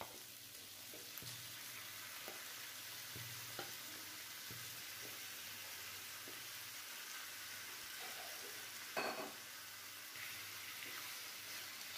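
Faint sizzling of marinated chicken pieces frying in oil in a nonstick pan, with light scrapes and clicks of a spatula stirring them; one brief louder knock about nine seconds in.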